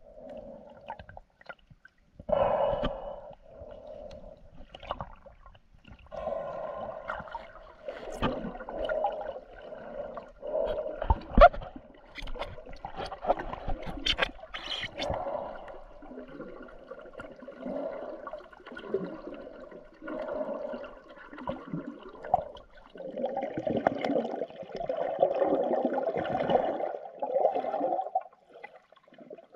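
Muffled water sloshing and gurgling as heard by an underwater camera in its waterproof housing, coming in irregular bursts. There is one sharp knock about a third of the way in.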